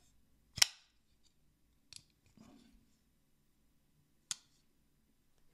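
Morgan Koens Keen Bowie folding knife's blade being opened and closed on its freshly reassembled pivot. There is a sharp metallic click about half a second in, a softer tick near two seconds, and another sharp click about four seconds in.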